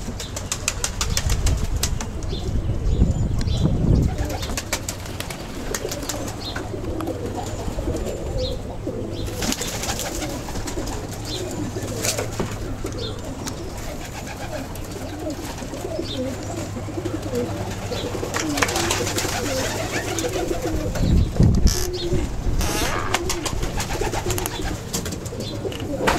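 Many domestic pigeons cooing together in a loft as a steady chorus, with scattered clicks and two low rumbles, one about three seconds in and one near the end.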